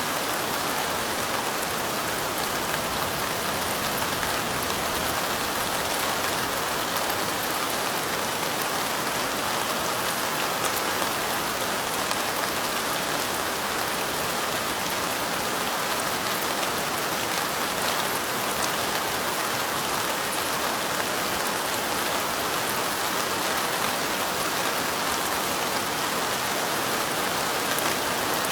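Light rain falling steadily: an even, unbroken hiss with faint fine pattering of drops.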